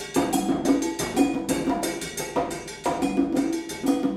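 Percussion ensemble music: many interlocking strikes on wood blocks and drums, several a second, layered into a dense rhythmic pattern with hollow pitched knocks.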